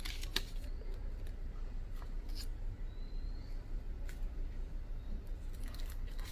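Hands handling the contents of a phone box: a few light clicks and soft rustles of paper and packaging, with a low steady hum underneath.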